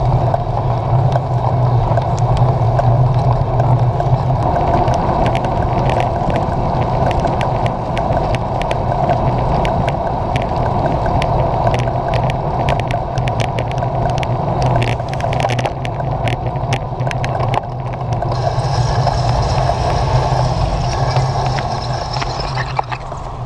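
Riding noise of a road bicycle on a wet road, picked up by a handlebar-mounted camera: a steady low rumble and hiss of wind and tyres. Scattered sharp ticks come through the middle, and a faint high whine joins near the end.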